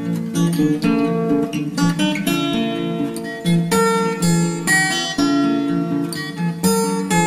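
Background music: an acoustic guitar playing a tune, plucked notes and chords following one another in quick succession.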